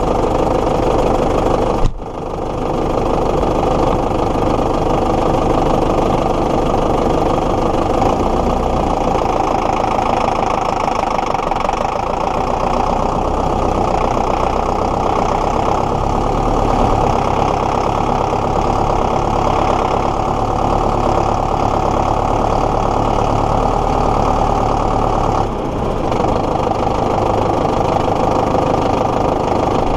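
Zetor Proxima 105 Plus tractor's four-cylinder diesel engine running steadily while driving, heard close up; its level drops briefly about two seconds in and again shortly before the end.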